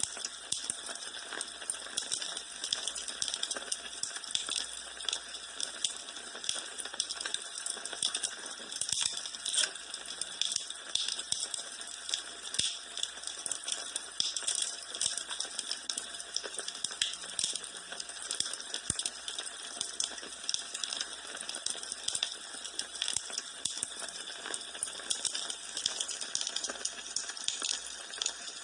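Wood fire in a fireplace crackling: a dense, irregular stream of small pops and snaps over a soft hiss.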